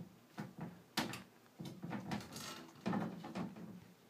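A few sharp knocks and rattles from a closet door, heard from inside the shut closet. One knock comes near the start and another about a second in, with softer scuffling around the third second.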